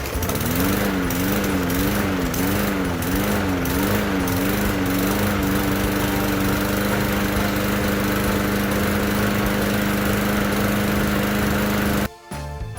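Bolens lawn mower's small engine running just after starting, its speed surging up and down about every half second before settling to an even run. It stops abruptly near the end.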